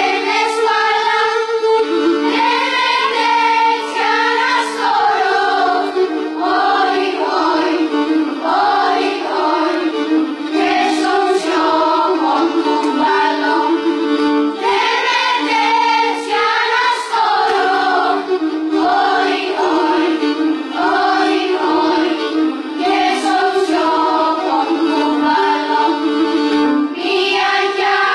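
A choir of young voices singing with an ensemble of bowed Pontic lyras (kemençe), the lyras holding sustained notes under the melody.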